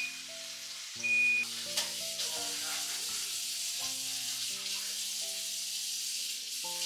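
Food sizzling and crackling in a hot frying pan, over soft background music with slow, held notes.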